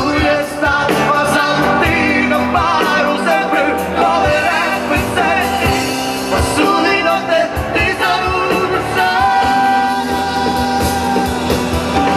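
Live rock band playing with a lead singer: vocals over drums and electric guitar at a steady, loud level.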